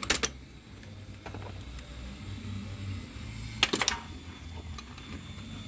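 Hand tools clinking: a socket extension and wrench knocking together as they are fitted, in two short bursts of metal clicks, one at the start and one about three and a half seconds in.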